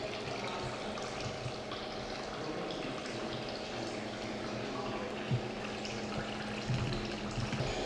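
Steady background noise of a building interior: a continuous hiss over a low hum, with a soft knock about five seconds in.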